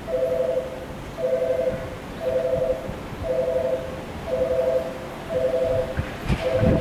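Railway warning alarm: a two-tone electronic chime about half a second long, sounding about once a second, warning of an approaching train. Near the end, the train's rumble and wheel knocks rise under it.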